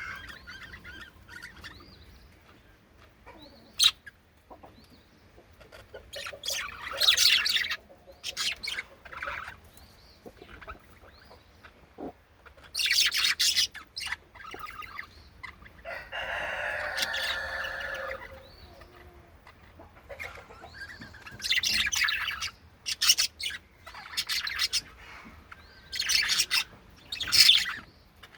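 Budgies chirping and chattering in irregular bursts, with one longer call of about two seconds midway.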